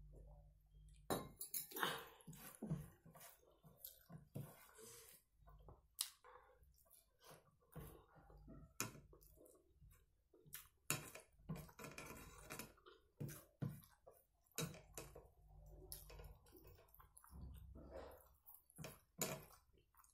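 Close-up eating sounds: a person chewing mouthfuls of rice and mutton curry and mixing the food by hand on a plastic plate, heard as a run of irregular soft clicks and mouth noises.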